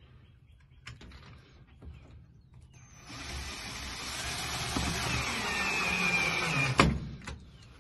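Cordless drill running under load for about four seconds, starting about three seconds in. Its whine drops in pitch as it runs, and it stops with a sharp click.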